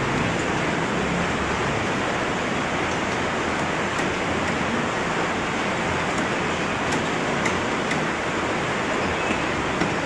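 Steady, even hiss with a few faint clicks.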